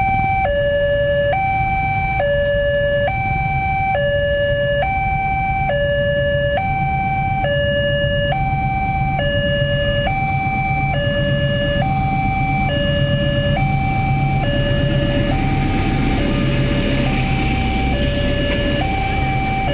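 Railway level-crossing warning signal sounding a steady two-tone alarm, high then low, each tone a little under a second, over the low rumble of a diesel-hauled passenger train. The noise of the passing train's wheels grows louder near the end.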